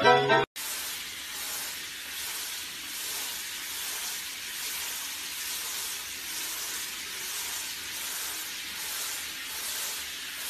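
Handheld shower head spraying water onto a dog sitting in a bath: a steady hiss of spray with a slight rise and fall. Music cuts off about half a second in.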